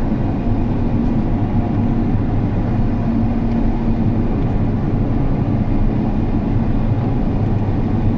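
Combine harvester engine running steadily, heard from inside the cab as an even low drone with a held hum.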